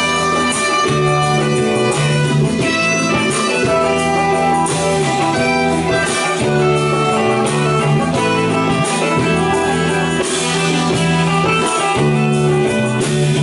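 Live band playing an instrumental passage, guitar to the fore over drums and keyboard.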